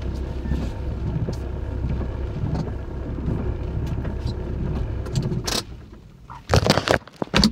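Cabin noise of a van driving in the rain: a steady low road and engine rumble with faint scattered ticks. About five and a half seconds in the rumble drops away, and a few loud sudden bursts follow near the end.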